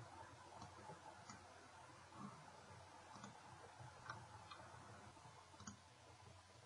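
Near silence with about six faint, short clicks spread through it: computer mouse clicks.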